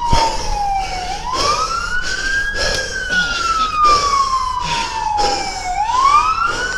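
Police car siren on wail, sliding slowly down in pitch and then sweeping quickly back up, twice. Short repeated knocks and rustling sound over it.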